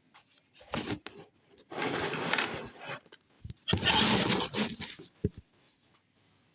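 Furniture being shifted, scraping and rustling in three bursts of about a second each, followed by a short knock.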